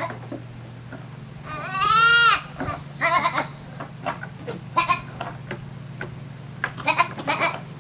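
Goats bleating: one long, loud bleat about two seconds in, then several shorter calls, over a steady low hum.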